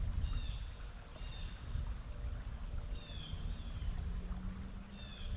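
Low outdoor rumble of wind and moving water, with four short high bird chirps spread through it and a faint steady hum joining about two seconds in.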